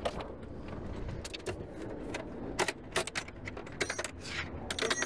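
Keys jangling with a run of clicks and knocks as a van's door is unlatched and opened and someone climbs into the cab; the keys ring out twice near the end.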